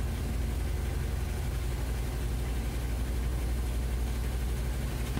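Steady low machine hum, even and unchanging, with a faint hiss over it.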